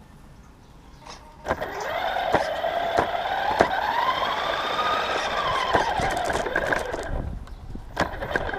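Team Associated RC10B4.2 electric RC buggy's motor and drivetrain whining as it pulls away about one and a half seconds in, the pitch rising as it speeds up and falling again as it slows, fading out near the end. Scattered sharp clicks and knocks sound over the whine.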